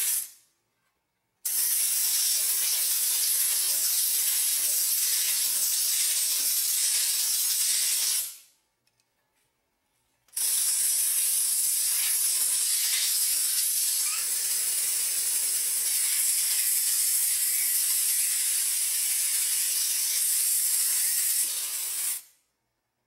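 Compressed air blasting from an air-compressor blow gun as a steady hiss, in two long bursts of about seven and twelve seconds, each stopping abruptly. The air is forced under a rubber scooter grip so it slides onto the handlebar.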